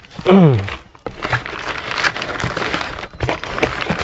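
Cardboard carton flaps and rod packaging rustling and crinkling as fishing rods in a cloth bag are pulled out of a long cardboard box, starting about a second in.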